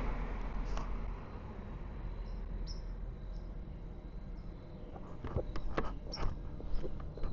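Crickets chirping in the night air, a thin steady high trill with small chirps over a low rumble. A few sharp clicks come about five to seven seconds in.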